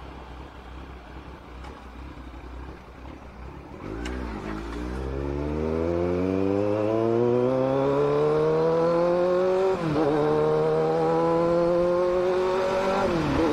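Kawasaki Z900's inline-four engine running low and steady, then pulling hard from about four seconds in, its pitch rising steadily. The note drops briefly at a gear change about ten seconds in and again near the end, each time climbing once more.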